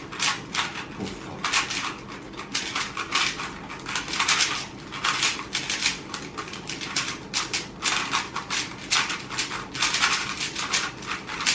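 Rubik's cubes being turned fast in a speedsolve: a rapid, continuous clatter of plastic clicks and clacks.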